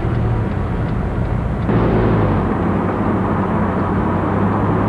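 Engine hum and road and wind noise from inside a moving vehicle, steady, growing louder about two seconds in.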